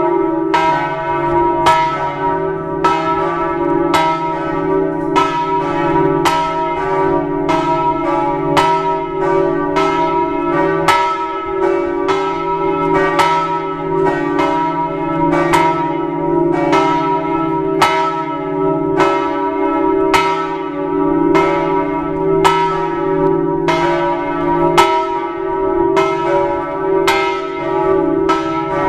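Church bells of the Campanile di San Marco tolling, struck about once a second, with their deep hum ringing on between strokes.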